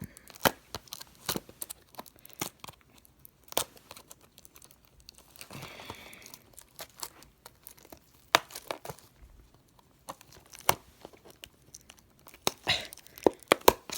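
Crinkly wrapper of a trading card pack being squeezed and pulled at by hand, with irregular crackles and sharp clicks, as it resists being torn open.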